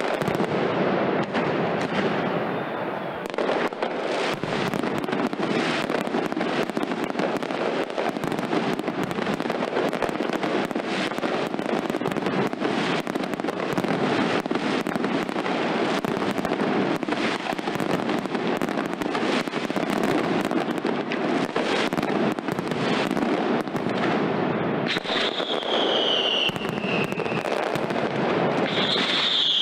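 Mascletà by Pirotecnia Ferrández: a dense, unbroken barrage of firecracker bangs. Two falling whistles cut through near the end.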